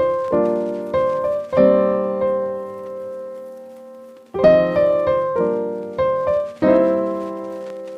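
Background piano music: slow chords struck and left to ring and fade.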